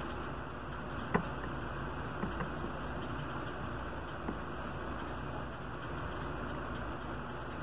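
Small clicks and taps of tools against a circuit board while a wire is soldered to a RAM stick's pad: a sharp click about a second in, two small ones just after two seconds and another after four seconds, over a steady background hiss.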